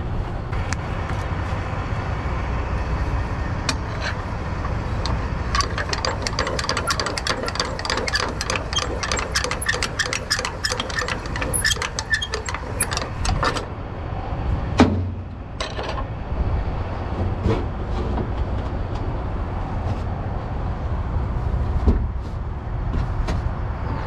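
Nylon cargo straps being handled and rolled up on a flatbed trailer, with a quick run of clicks lasting several seconds in the middle and a few single knocks after it, over a steady low rumble.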